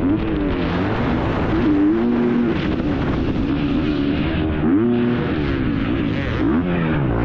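Motocross bike engine heard from an onboard camera, revving up and dropping back again and again as the throttle is worked, its pitch climbing and falling several times.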